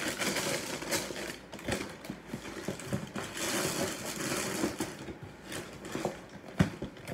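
A family-size cardboard cereal box being handled and turned over: the box and its bag of cereal rustle with a dense run of small clicks, and there is one sharper knock near the end.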